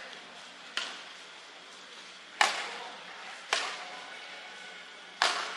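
Badminton rackets striking a shuttlecock back and forth in a rally: four sharp hits, one to two seconds apart.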